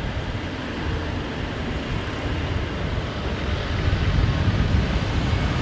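Low, fluctuating vehicle rumble with a hiss, getting louder about four seconds in as a car drives up.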